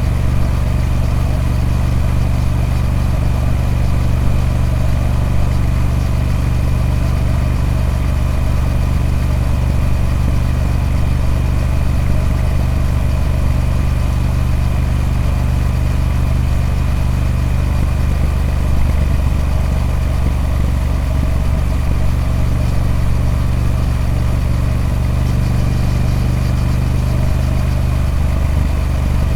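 Triumph Speed Twin 1200's 1200cc parallel-twin engine running through its stock exhaust, holding a steady, even engine speed with no revs up or down.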